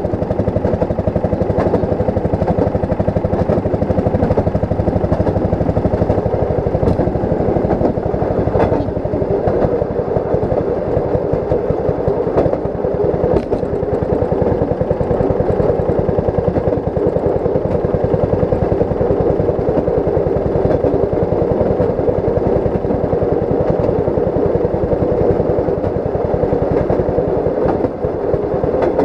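Railroad speeder (track motorcar) under way: its small engine running steadily with the clatter of steel wheels on the rails, and a few sharp clicks.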